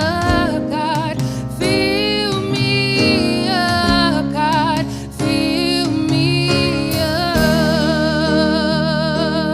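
Gospel worship music: a singer's wordless or unclear melody with wavering held notes over sustained instrumental chords, ending on a long held note.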